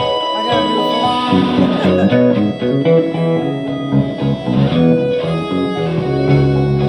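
Electric guitar played live, changing notes quickly over held chords, with a sustained low chord ringing at the start and again near the end.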